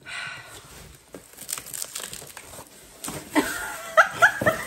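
Cardboard shipping box being handled and opened: flaps and packaging rustling, scraping and crinkling with small knocks. Near the end a woman's voice comes in, laughing.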